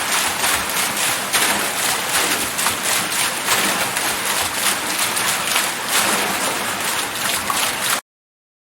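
Water wheel turning, its paddles churning and splashing water in a steady rushing wash with irregular surges. It cuts off abruptly near the end.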